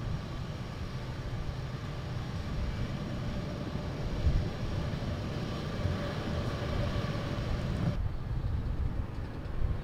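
Four-engine C-17 Globemaster III's turbofan engines running: a steady rumble with a faint whine over it. The sound changes abruptly about eight seconds in, when the higher part drops away.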